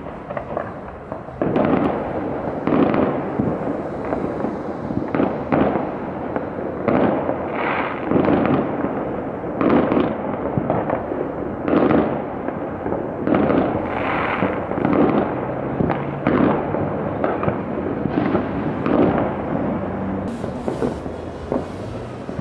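Many fireworks going off at once across the city: a dense run of overlapping bangs and crackles that never lets up, with sharper crackling near the end.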